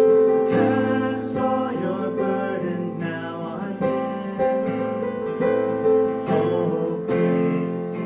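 Hymn sung by male voices, accompanied by strummed acoustic guitar.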